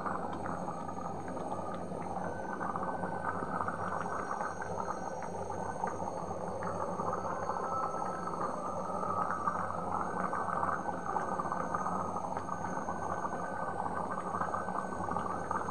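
A pot of thin vegetable curry boiling hard: steady bubbling with many small pops and crackles.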